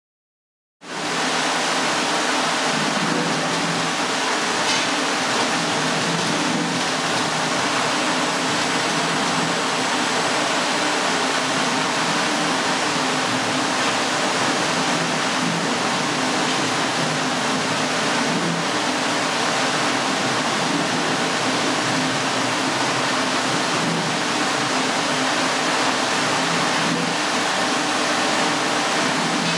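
Florigo ultra-peel SKC abrasive peeler line running: a steady, loud rushing machine noise with a low hum that starts about a second in after silence.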